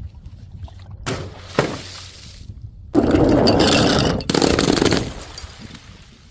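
Glass breaking: a couple of sharp knocks, then a loud crash of shattering glass about three seconds in, followed by a second crash of breaking glass that trails off.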